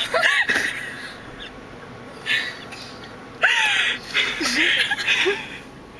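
High-pitched shrieking laughter from people inside a car, short squealing whoops near the start and again in a longer fit from about three and a half seconds in, with breathy gasps between.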